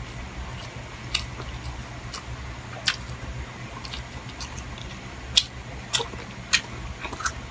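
Close-miked eating: a person chewing chicken liver and gizzard adobo, with wet mouth smacks. Several sharp clicks come through, the loudest about five and a half seconds in, over a steady low hum.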